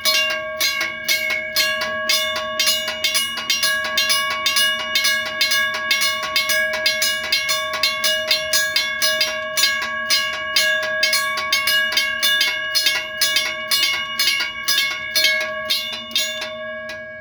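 Two electromechanical railroad crossing bells, a US&S teardrop bell and a WRRS bell, ringing together in a rapid, even run of strikes over a sustained ringing tone, with a low steady hum beneath. The strikes stop shortly before the end.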